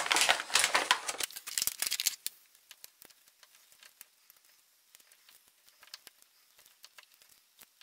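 Plastic bag crinkling and rustling as a small piston ring compressor is taken out of its packet, for about two seconds. Then only faint, scattered small clicks and taps as the tool is handled and fitted.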